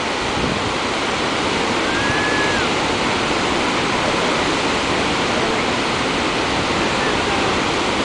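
Niagara Falls rushing over its brink, with the rapids just above it: a loud, steady, unbroken roar of falling water.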